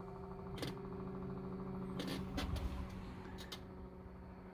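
Reversing hydraulic autopilot pump motor running with a steady hum as the autopilot drives the outboard's hydraulic steering to centre the rudder during calibration. A few short clicks or knocks sound over it, about half a second in, around two seconds in and again about three and a half seconds in.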